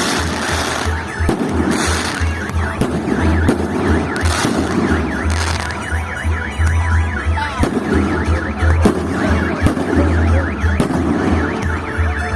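Fireworks display going off, with repeated sharp bangs and crackles over a steady low rumble. A warbling, rising-and-falling wail like a car alarm runs through the middle.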